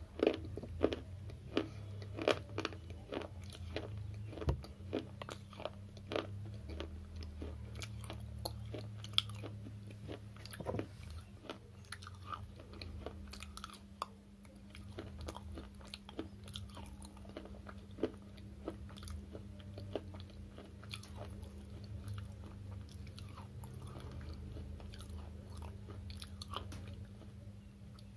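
Close-up crunching and chewing of dry slate chips bitten from a slate stick. Sharp crunches come thick and fast for the first ten seconds or so, then thin out into softer chewing with only an occasional crunch, over a faint steady low hum.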